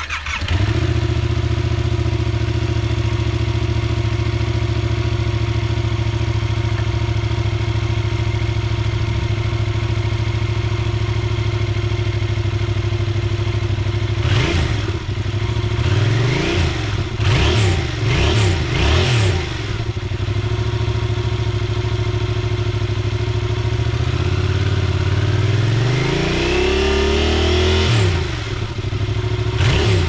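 Yamaha MT-07's 689 cc parallel-twin engine breathing through its stock exhaust, idling steadily. About halfway through, a series of quick throttle blips. Near the end, one longer rev that climbs and then drops back to idle.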